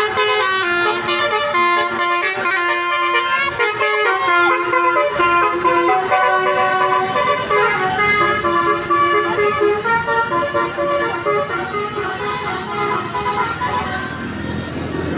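Basuri multi-tone telolet bus horn playing a tune, several horn tones at once, changing note by note.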